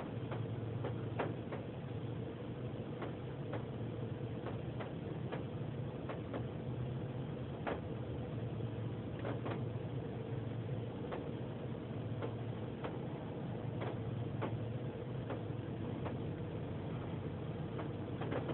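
Steady low hum heard from inside a car's cabin in an automatic car wash tunnel. It is broken by irregular sharp ticks, roughly one a second, of water dripping onto the car.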